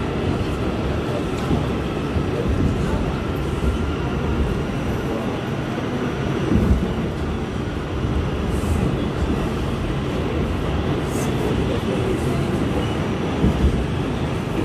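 New York City subway train running through the station: a steady, dense low rumble of wheels and motors, with a few faint high clicks in the middle and near the end.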